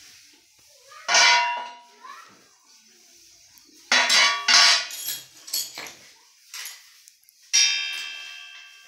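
Metal machine parts and tools striking each other with ringing clangs. There is one clang about a second in, a quick cluster of knocks around the middle, and a last clang near the end that rings on, as a paint-stuck part is worked loose.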